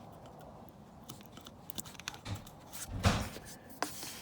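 Thin protective plastic film being peeled off an air compressor's pressure gauge, with scattered crinkles and small clicks. A short, louder thump with a crackle comes about three seconds in.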